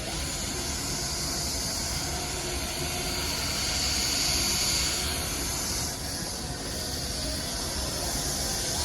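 Milwaukee M12 cordless buffer running steadily, its pad giving a hissing whir on the headlight lens. It swells a little about four seconds in and dips briefly about two seconds later.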